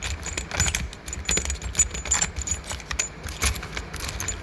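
Small steel screw extractors (easy-outs) clinking and rattling against each other as they are picked through in their set: a rapid, irregular series of light metallic clicks with a bright ring.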